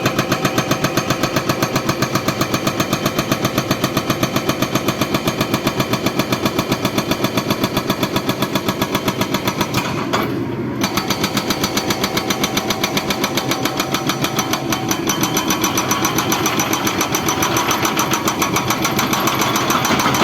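Excavator's diesel engine running, with a steady, rapid pulse of about five beats a second. It drops out briefly about halfway, then carries on.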